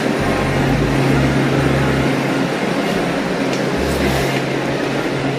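Steady machinery hum with a constant low drone and a rushing noise, with uneven deep low pulses beneath it.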